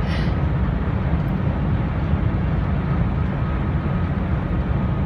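Steady road and engine noise inside the cabin of a car driving on a highway: a low, even rumble with a hiss above it.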